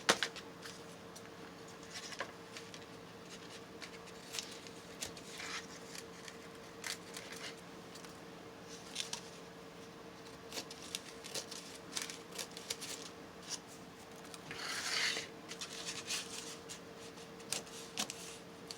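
Scissors snipping paper by hand in short, irregular cuts, trimming off excess paper, with a longer paper rustle about fifteen seconds in.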